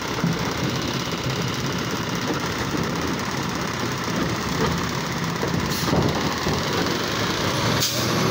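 Automated side-loader garbage truck running hard as its hydraulic arm empties a cart into the hopper and lowers it, with two sharp metal knocks about six seconds in and near the end.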